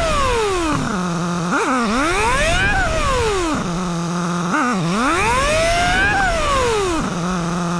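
BMW S1000R inline-four motorcycle engine running through three quick cycles: revving up as the bike accelerates, winding down as it brakes to a stop, idling briefly, then a short blip as it pulls away again. The pitch is raised and the cycles come only about 3 seconds apart, as in sped-up footage of the brake-bedding stop runs.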